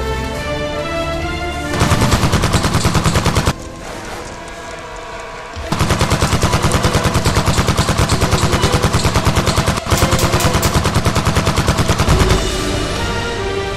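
Rapid automatic fire over background music: a short run of evenly spaced shots that cuts off abruptly, then after a pause a longer run lasting about six seconds with a brief break partway through.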